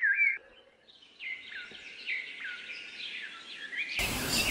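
Birds chirping: a loud run of short repeated chirps, about three a second, stops half a second in, and softer chirps from several birds follow after a brief hush. About four seconds in, a louder outdoor background hiss comes in with more chirping.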